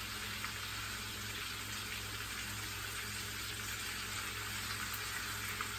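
Chicken cordon bleu frying in hot oil in a frying pan: a steady sizzle with a couple of faint ticks, over a low steady hum.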